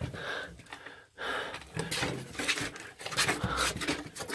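A person panting heavily, breath after breath, with a short pause about a second in.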